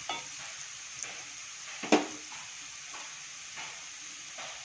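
Diced pineapple frying in coconut oil in a wok, a steady soft sizzle with small crackles. About two seconds in there is a single sharp knock against the pan.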